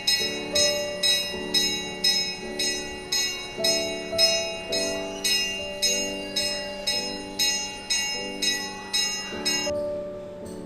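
Background music: a bell-like note struck about twice a second over held chords, stopping shortly before the end.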